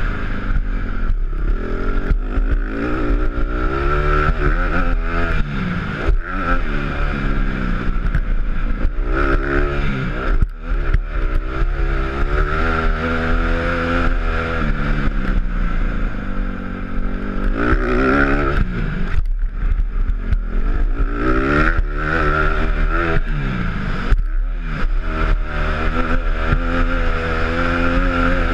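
Honda CRF150 dirt bike's four-stroke single-cylinder engine revving hard and repeatedly, climbing in pitch, then dropping away as the throttle is rolled off or a gear is changed, then climbing again.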